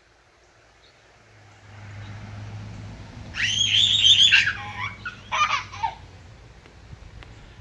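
A toddler squealing with laughter in two high-pitched bursts, a longer one about three and a half seconds in and a shorter one a second later.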